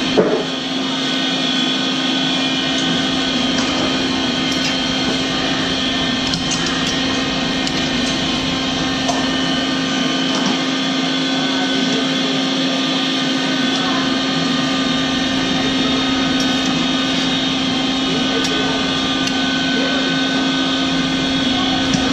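Rice-flour crackers deep-frying in a large wok of bubbling oil, with scattered faint crackles, under a loud steady mechanical hum. A short knock at the very start.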